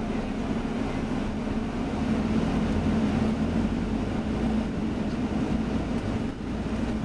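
London bus running in traffic, heard from inside the cabin: a steady engine drone with a constant low hum over road rumble.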